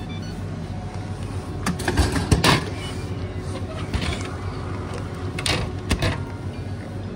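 Supercooled Coca-Cola vending machine dispensing a plastic bottle, over a steady low hum. A cluster of knocks and thuds about two seconds in, the loudest sounds, then a few sharper clicks and knocks later as the bottle is taken from the tray.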